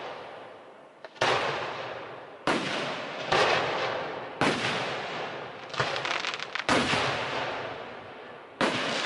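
Aerial firework shells bursting: about seven sharp booms, roughly one every second or so, each trailing off in a long echoing rumble. A quick run of rapid pops comes just past the middle.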